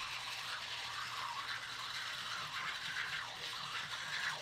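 Teeth being brushed with a manual toothbrush: repeated back-and-forth scrubbing of the bristles.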